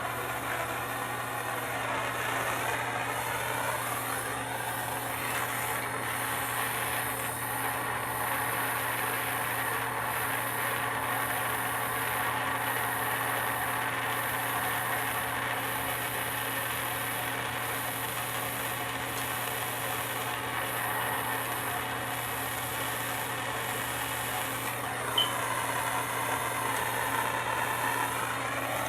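Handheld gas torch flame burning with a steady rushing hiss as it heats a copper pipe fitting for soldering, over a steady low hum. A single sharp click near the end.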